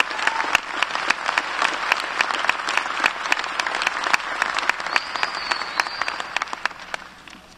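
Large audience applauding in a hall, a dense clatter of many hands, with a high whistle cutting through twice past the middle; the applause fades away near the end.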